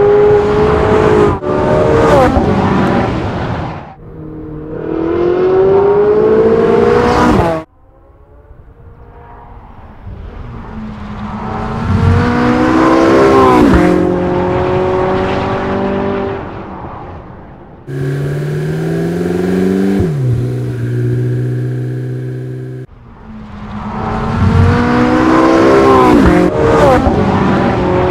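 Porsche 918 Spyder's 4.6-litre V8 at high revs on a race track, climbing in pitch through the gears with quick upshifts. It passes close by three times, each pass with a sharp drop in pitch. The sound breaks off suddenly several times.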